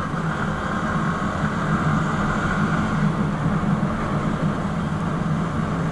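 Sport motorcycle's engine running steadily while riding at an even speed, with a constant rush of wind noise.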